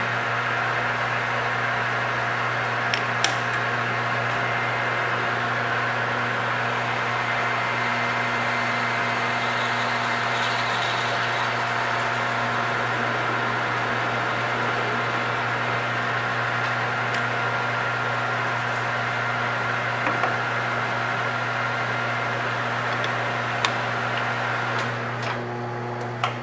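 Metal lathe running steadily in reverse with an even hum while a cutting tool takes chips off the end of a brass bar, turning a cone. A few faint ticks about three seconds in and again near the end.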